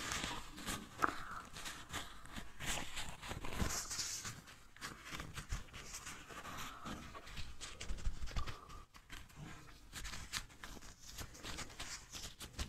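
Paper rustling and crinkling as a folded sheet of paper is pressed, rubbed and shifted against the face, with scattered small crackles and clicks.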